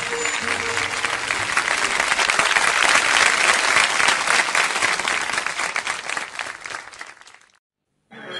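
Studio audience applauding, a dense crowd of clapping that swells to its loudest in the middle and dies away to a brief silence near the end. The last notes of the stringed instruments and tabla fade under it in the first second.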